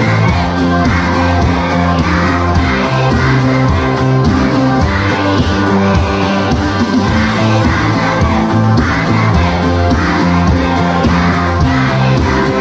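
Young children's choir singing an upbeat worship song together over loud accompaniment music with a steady beat.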